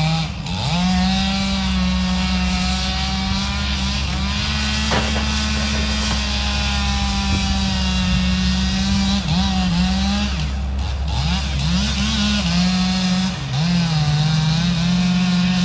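Tracked excavator's diesel engine running steadily at high revs while its log grapple lifts and swings logs. In the second half the engine note dips and recovers several times as the hydraulics take load.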